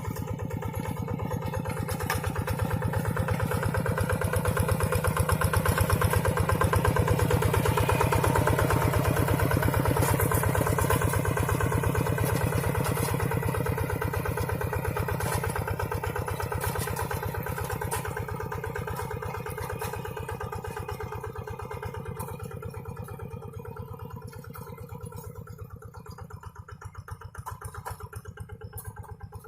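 Single-cylinder diesel engine of a Quick two-wheel hand tractor running steadily with a fast, even beat as it pulls a plough through the field. It grows louder over the first several seconds and then fades slowly as the tractor moves away.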